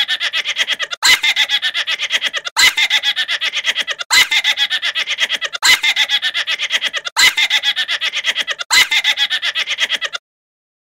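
A snickering laugh, a rapid string of short chuckles, played over and over about every second and a half, seven times, stopping abruptly near the end.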